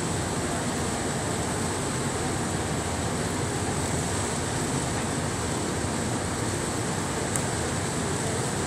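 Steady drone and hiss of heavy machinery running, even throughout with no distinct rhythm.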